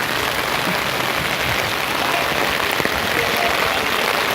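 Steady rain falling and pattering on surfaces, an even hiss with no let-up.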